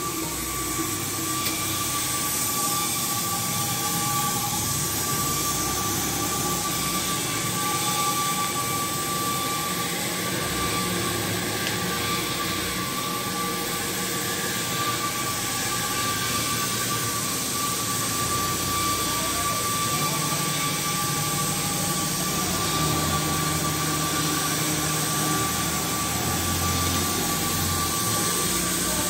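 CNC cutting torch burning through thick steel plate: a steady jet-like hiss with a steady high-pitched tone running through it.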